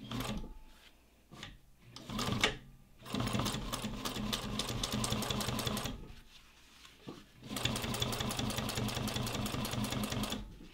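Juki DNU-1541 industrial walking-foot sewing machine stitching through leather, a few short spurts first, then two runs of about three seconds each with a brief stop between them, the needle beating fast and even.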